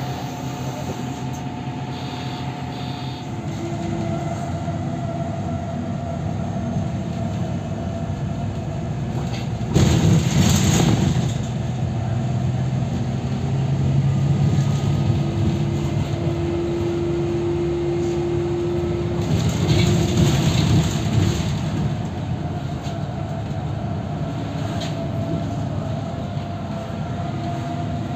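Interior of an MAN NL283 Lion's City diesel city bus moving off and driving, its engine and drivetrain running under load. A loud rushing burst comes about ten seconds in, and a steady whine sounds for a few seconds in the middle.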